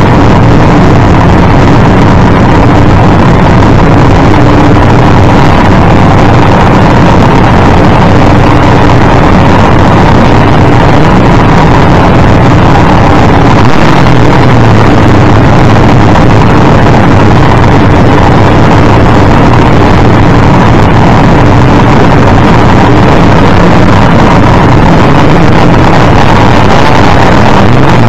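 Group C V8 touring car engines idling steadily, loud and close up, without revving; the nearest is the 1984 XD Ford Falcon's own engine.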